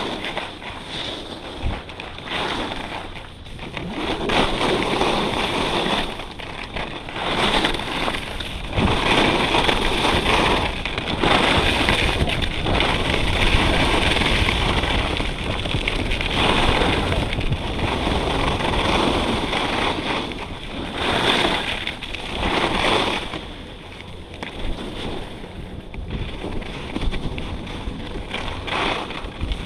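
Wind buffeting an action camera's microphone and skis scraping over hard-packed snow during a fast downhill ski run, rising and falling in long swells with the turns.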